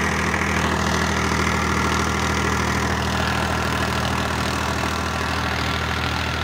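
Powertrac 439 Plus tractor's three-cylinder diesel engine running steadily at an even pitch while working a 7-foot rotavator.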